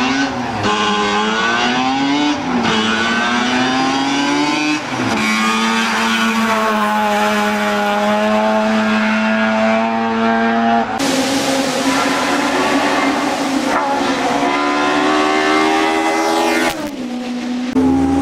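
Race car engine at full throttle, shifting up through the gears: its pitch climbs and drops back again and again.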